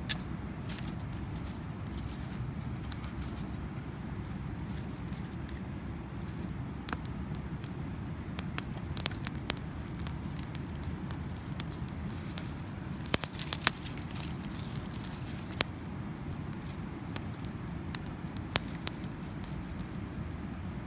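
Scattered sharp snaps and crackles over a steady low rumbling noise, with a cluster of louder snaps a little past the middle.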